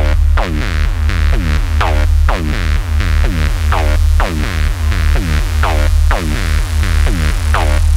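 Electronic music with a heavy bass line and a steady beat, built on repeated notes that fall in pitch about twice a second.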